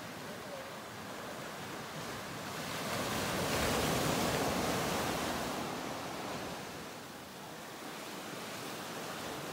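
Ocean waves: a steady wash of surf that swells to a peak about four seconds in, then ebbs away.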